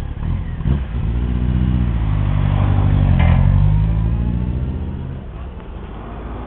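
Honda CB1300 Super Bol d'Or's inline-four engine accelerating away. The engine note rises and grows louder, is loudest about three seconds in, then fades as the bike draws away.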